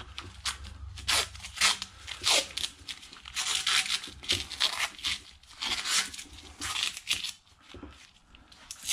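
Green masking tape being pulled off its roll and torn, a long run of short ripping peels.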